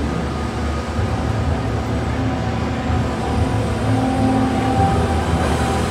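Komatsu PC4000 front shovel excavator's 16-cylinder diesel engine running under load as the hydraulics raise the boom and bucket, a steady low drone.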